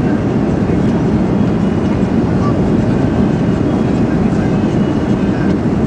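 Steady cabin noise of a Boeing 737-400 airliner in flight: the constant low rumble of its CFM56 engines and the airflow over the fuselage, unchanging throughout.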